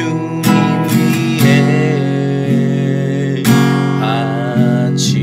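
Acoustic guitar strumming sustained chords, a fresh stroke every second or so, with a wavering melody line above it, as an instrumental passage of a Korean gospel song.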